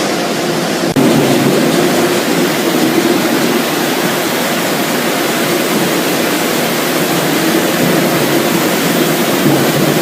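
Steady rushing noise of a French fries production line running, machinery and water together. It cuts about a second in and resumes slightly louder.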